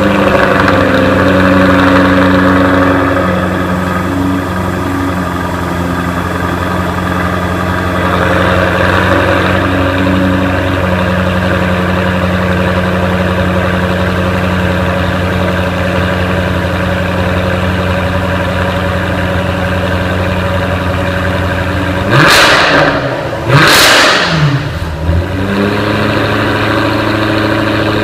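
2015 Jaguar F-Type R Coupe's 5.0-litre supercharged V8 exhaust idling just after start-up. The idle eases down slightly about four seconds in. Near the end come two quick throttle blips, the revs rising and falling twice in a row, before it settles back to idle.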